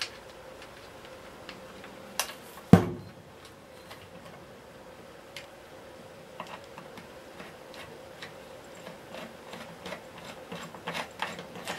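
Small metallic clicks and ticks of a nut being fitted and a screw being driven home with a screwdriver on a vacuum cleaner motor's housing, with one sharp knock between two and three seconds in; the ticking gets busier near the end as the fastening is tightened.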